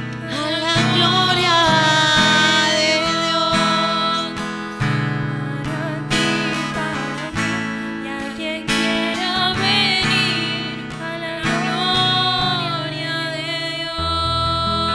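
A woman singing a slow devotional song with long held notes into a microphone, accompanied by a strummed acoustic guitar.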